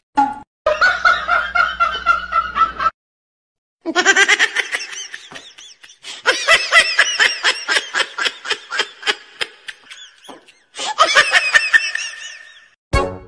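Laughter in several runs of rapid repeated laughing pulses, with a brief pause about three seconds in.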